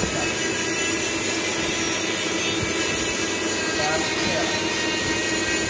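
Steady mechanical drone of workshop machinery running, with faint voices in the background.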